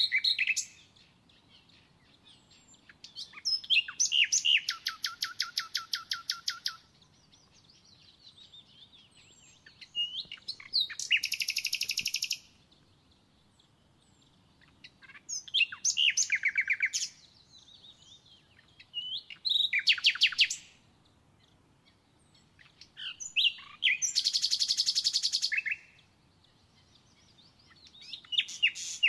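A songbird singing a repeated phrase about every four seconds: a few short high notes followed by a fast, even trill lasting a second or two.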